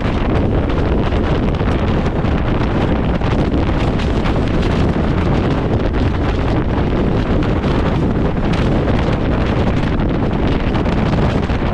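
Gale-force mountain wind, over 35 m/s, buffeting the microphone with a loud, steady rumble.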